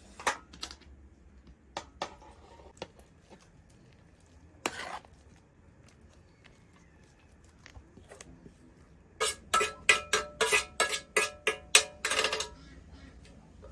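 A metal utensil clinking and scraping against a metal pot or dish. A few light knocks and a brief scrape come first, then a quick run of about a dozen ringing clinks lasting some three seconds near the end.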